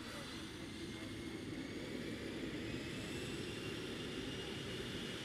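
Cirrus Vision SF50 single-engine personal jet taxiing, its turbofan running with a steady rumble and a high whine that slowly rises in pitch and grows a little louder.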